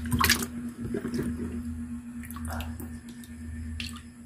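Hands moving freshly caught fish and squid about in a container of water: wet splashing and sloshing, loudest just after the start, with a few smaller splashes later, over a steady low hum.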